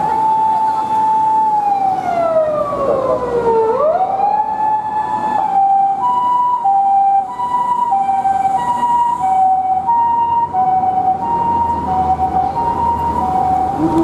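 Japanese ambulance siren: a wailing tone that rises, holds, sinks and rises again, then about five seconds in switches to the two-tone hi-lo "pee-poh" pattern, alternating steadily between two pitches, over light traffic noise.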